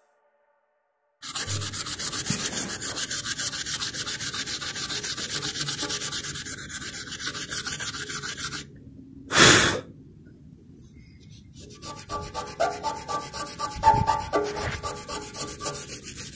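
Fingers rubbing briskly back and forth over a small oval metal tag on an old cast-iron lathe base, about four strokes a second, with squeaks in the later strokes. A short loud burst of noise comes about halfway through, between two spells of rubbing.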